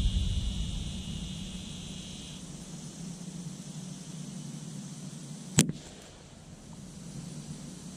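A single shot from a Ruger 10/22 .22 LR semi-automatic rifle with a Kidd barrel: one sharp crack a little after halfway through. A low rumble fades away over the first two seconds.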